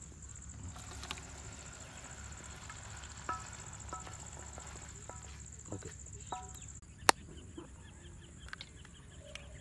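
Metal spoon scraping sauce from a steel pan into a steel bowl: several light clinks, each with a short metallic ring, and one sharp click about seven seconds in. A steady high drone runs underneath and stops shortly before that click.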